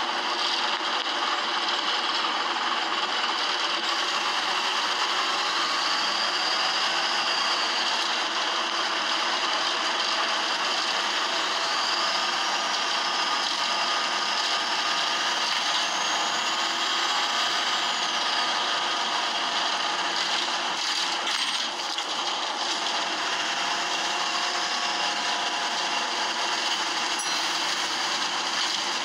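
Optare Solo bus's engine and drivetrain heard from inside the saloon, a steady noisy running with rattling and faint whines that rise and fall in pitch. The engine is noisy from a fault.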